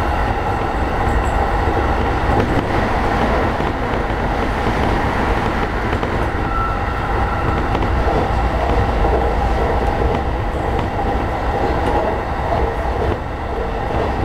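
JR East E233-series electric train running at speed, heard from inside the front car: a steady rumble of wheels on rail and running gear, with faint steady tones above it.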